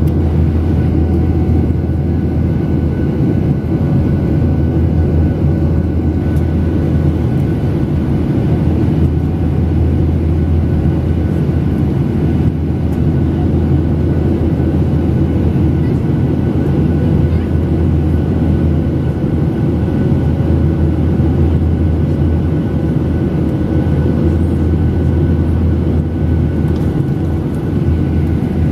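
Steady cabin noise inside a jet airliner in flight, heard from a window seat over the wing: the engines and the airflow past the fuselage make a constant low rumble with a few faint steady tones above it.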